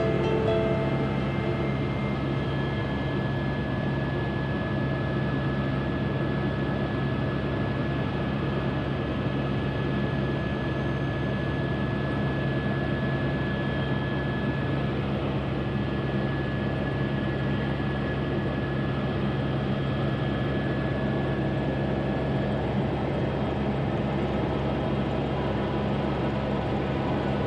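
Helicopter in flight: a steady rotor and engine drone with a low hum and a faint high whine.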